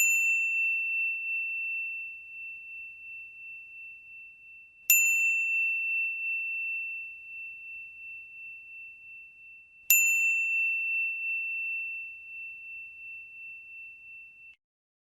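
A high bell-like ding, struck three times about five seconds apart, each ringing out and fading slowly.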